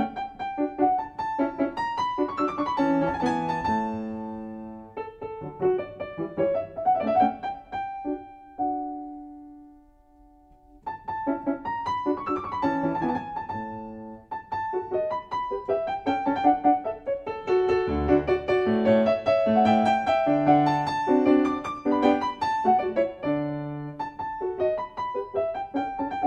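Background piano music, a gentle melody of single notes and chords. About eight seconds in, the last notes are held and fade almost to nothing, and the playing starts again about two seconds later.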